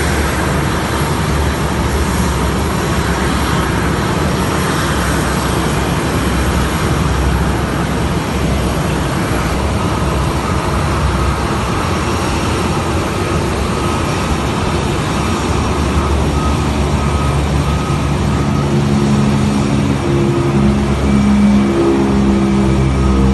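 Boeing 737 jet engines running at taxi power: a steady roar with a faint high whine that comes in about halfway through. Background music fades in near the end.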